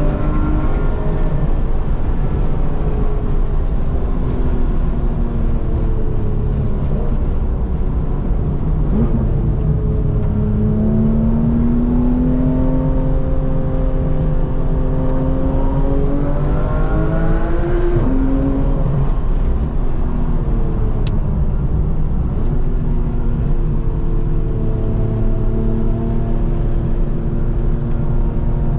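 Porsche 991 GT3's flat-six engine heard from inside the cabin while driven hard, its pitch rising and falling through the rev range with a steady low rumble beneath. It climbs slowly for several seconds in the middle, drops sharply about two-thirds of the way in, then climbs again near the end.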